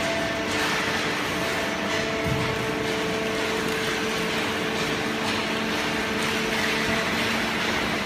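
Horizontal cardboard baler and its feed conveyor running: a steady machinery noise with several held humming tones that drop in and out.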